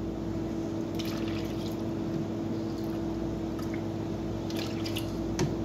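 Milk pouring from a plastic jug into a measuring cup, a steady pour as the cup fills, over a steady low hum.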